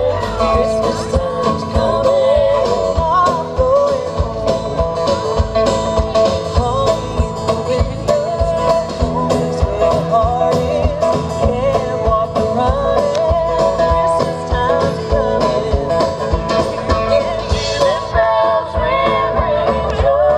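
Live band playing amplified through a PA, with electric guitars and a steady drum beat under a singing voice.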